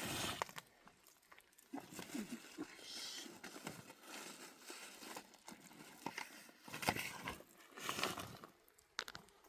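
Irregular rustling and crackling, like dry leaves and branches being handled, with scattered snaps and clicks and a few short louder bursts.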